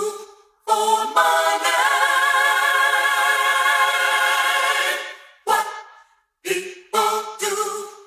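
Voices singing in harmony with no instruments: a few short sung notes, then a long held chord lasting about three and a half seconds, then more short clipped notes near the end.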